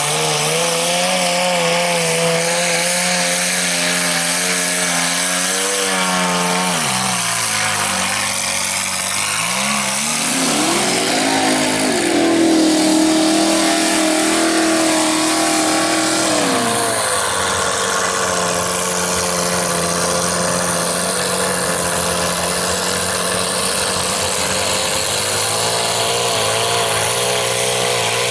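Mud truck engine revving hard under load as its big tyres churn through the mud bog, with a steady hiss of spraying mud. The engine note drops about a quarter of the way in, climbs back up and holds higher for several seconds, then settles to a steady lower note.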